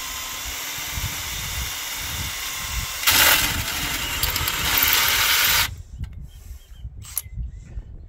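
Cordless drill boring into the steel wall of an old cement mixer drum: a steady grinding whir that turns louder and harsher about three seconds in, then cuts off suddenly a couple of seconds later. A few light clicks and taps follow.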